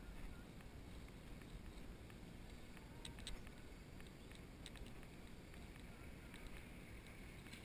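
Faint low rumble of wind and movement on a moving camera, with a few faint clicks about three seconds in.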